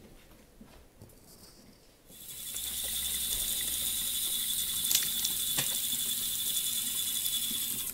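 Faucet running into a sink: a steady hiss with a thin high whistling tone, starting about two seconds in, with a couple of short clicks midway.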